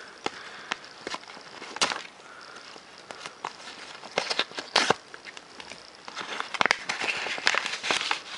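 Plastic mailer envelope being torn open and handled, with irregular crinkling and sharp crackles, busier in the second half.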